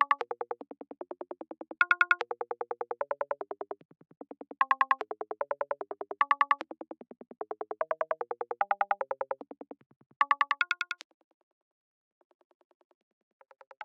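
VCV Rack modular synthesizer patch playing a sequenced pattern of short, rapid pitched notes, about ten a second, stepping through groups of different pitches. The sequence drops out about eleven seconds in, leaving a few faint notes, and starts again near the end.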